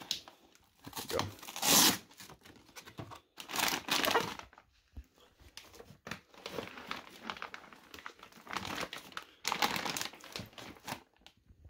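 Thin plastic bag crinkling and rustling in irregular bursts as a bagged rifle is handled and pulled from a hard case's foam insert, the loudest bursts near two and four seconds in.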